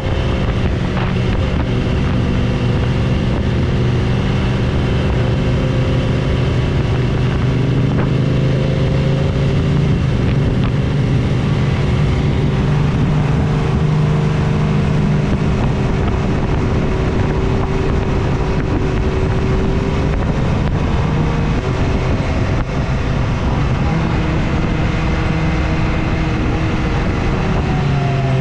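BMW S1000RR's inline-four engine running at a steady cruise while riding, with wind rushing over the microphone.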